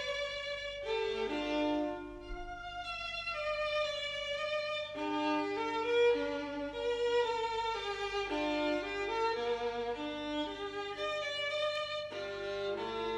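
Violin music with accompaniment, a melody moving note to note, over a steady low electrical hum.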